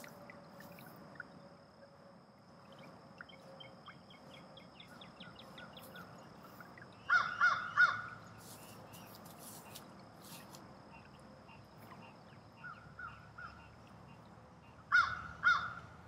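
Crow cawing: three loud caws about seven seconds in, three fainter ones a few seconds later, and two more loud caws near the end.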